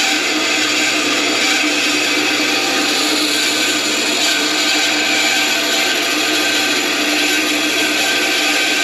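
Band saw running and cutting a soft plastic sheet, a steady, unbroken machine noise as the blade feeds through the material.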